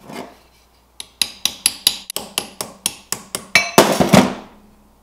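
Small hammer tapping a steel thumb knob onto a hydraulic bottle jack's release-valve shaft, a tight fit being forced on: about fifteen quick metal-on-metal taps at about four a second, ringing, the last few the hardest.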